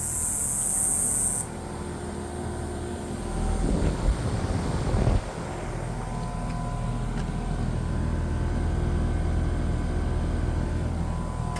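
Carrier central air-conditioner outdoor condensing unit running: a steady hum from the compressor and condenser fan, with a few steady whining tones above it. A high hiss cuts off about a second and a half in, and a louder rough rumble comes through for about a second and a half around the middle.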